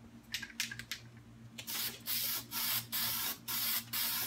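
Aerosol can of zinc-rich weld-through primer spraying in short hissing bursts, about six in a row starting about a second and a half in, after a few sharp clicks.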